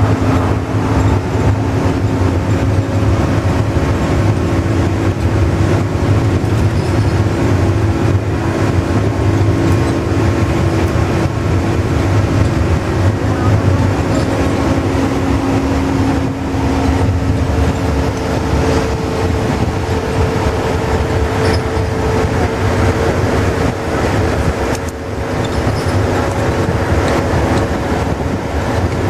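Volvo bus heard from inside while cruising at speed: a steady engine drone over continuous tyre and road noise, one engine tone rising a little past the middle.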